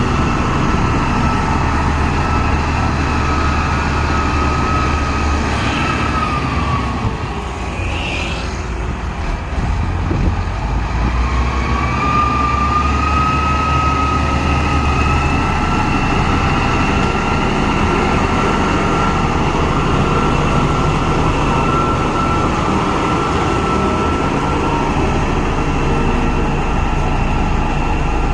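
Bulldozer's diesel engine working hard with a steady high whine over its rumble. It eases off about seven seconds in and revs back up a few seconds later.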